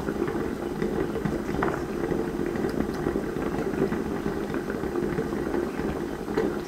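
Chestnuts boiling in water in a lidded glass pot on a gas burner: a steady bubbling with a dense, low crackle.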